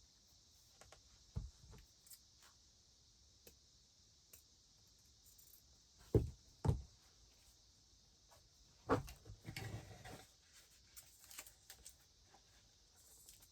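Quiet hand work with craft materials on a table: a few soft knocks, two close together about six seconds in, and a short rustle about ten seconds in.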